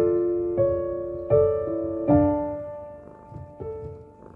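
Slow, gentle piano music: notes and chords struck about every second or less, each ringing and fading away, with a softer stretch near the end.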